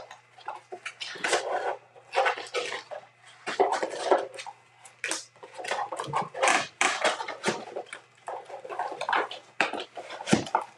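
Hard plastic card holders (toploaders) clicking and clattering against one another as fingers flip through a cardboard box packed with them, in short irregular runs.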